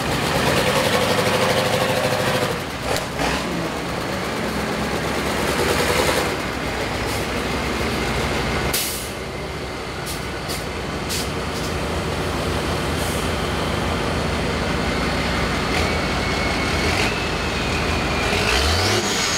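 Several school bus engines running hard in a demolition derby, with a few sharp bangs about halfway through.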